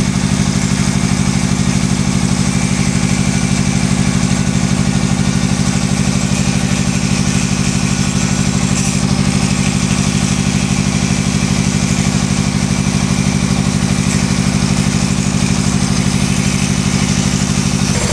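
Straight die grinder grinding inside an excavator's worn pin bore, over a loud, steady, engine-like drone with a fast even pulse. The drone's pitch shifts near the end.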